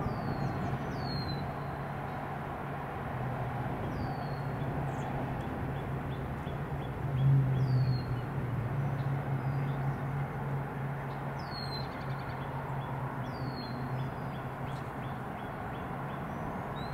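A steady low hum runs throughout and grows louder for about a second around seven seconds in. Over it, a small bird gives short, high chirps that fall in pitch, every few seconds.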